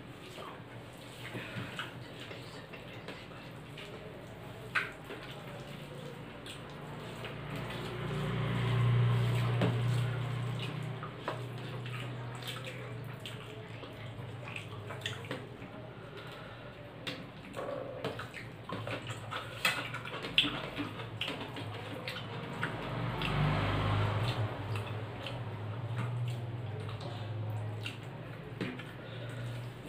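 Eating rice and curry by hand from steel plates: soft wet squishing of rice being mixed and scooped, with scattered light clicks of fingers and food against the steel. A low hum swells up twice, about a third of the way in and again near the end.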